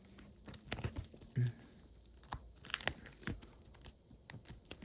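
Tape and cardboard crinkling and tearing as the doorknob parts are worked loose from the taped cardboard door, with scattered irregular clicks and knocks, the loudest cluster a little past halfway.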